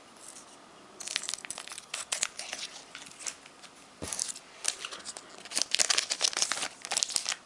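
Foil Pokémon booster pack wrapper crinkling and tearing as it is opened by hand, in irregular crackly bursts that start about a second in and grow busier toward the end.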